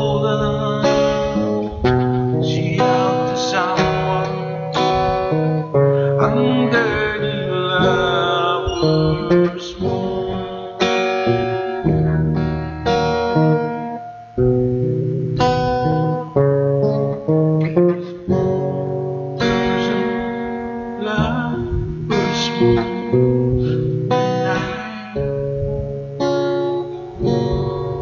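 Acoustic guitar strummed and picked in a slow song, with a man singing along over it at times.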